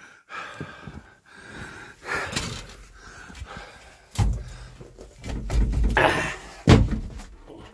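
A man climbing up into a tractor cab: breathing hard, with rustling and two heavy thumps against the cab, about four seconds in and near the end, the second the louder.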